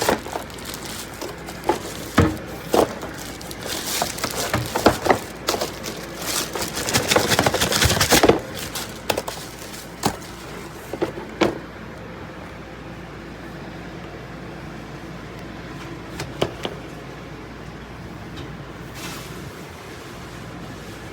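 Irregular clicks and clatter of keyboard keys and handling, densest and loudest about four to eight seconds in, then a few scattered clicks over a steady background hiss.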